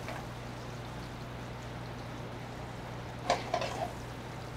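Sliced parsnips sizzling steadily in browned butter in a pan over a high gas flame, over a steady low hum. A brief louder noise comes a little over three seconds in.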